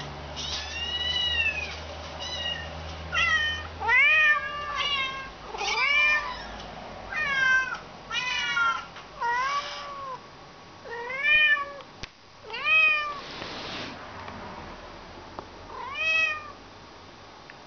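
Kittens meowing through a laptop's speakers, answered by an adult domestic cat meowing back: about a dozen arching meows, one every second or so, some higher and some lower in pitch. They stop near the end.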